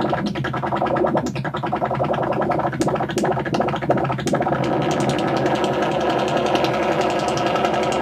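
Make Noise Eurorack modular synthesizer patch, run through the MMG filter with Maths driving the modulation, playing a dense, steady electronic drone of many stacked tones laced with a fast flutter of clicks.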